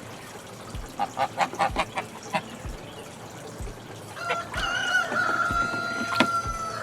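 Turkeys calling: a quick run of short clucks, then a long, high, held call that starts about four seconds in.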